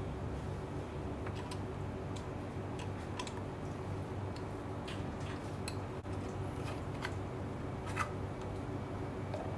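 Scattered light clicks and taps as a 4L60E transmission's aluminium valve body is handled and set in place on the case, over a steady low hum; the sharpest tick comes about eight seconds in.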